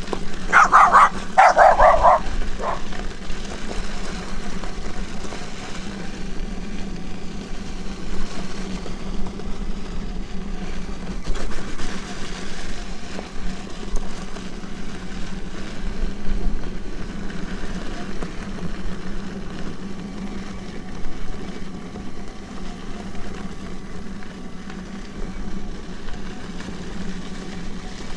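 A dog barks about four times in the first three seconds, louder than anything else. After that comes the steady hum and rumble of electric unicycles riding over a dirt and gravel trail, with wind and tyre noise.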